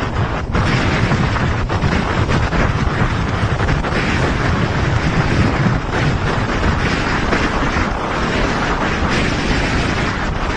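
Strong wind buffeting the microphone, mixed with waves and spray, as a small open boat pounds through rough water: a loud, steady rush heaviest in the low end.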